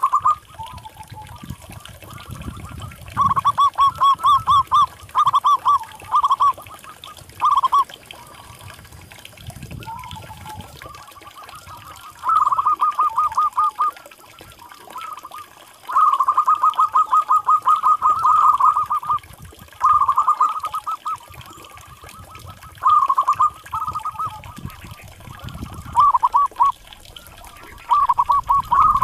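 Zebra dove (perkutut) singing: repeated bursts of rapid staccato cooing notes with pauses between, most bursts short and one running about three seconds.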